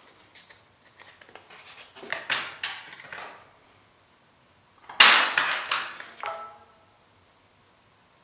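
Hand handling of tape and small tools at a work bench: light rustling and clicks, then about five seconds in a sharp clatter, like a tool set down on a hard surface, rattling briefly before it stops.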